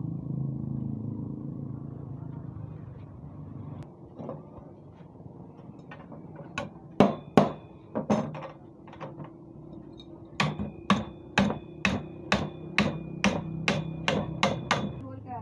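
Hammer strikes with a short metallic ring: a few separate blows, then a quick, even run of about a dozen taps, nearly three a second, in the second half.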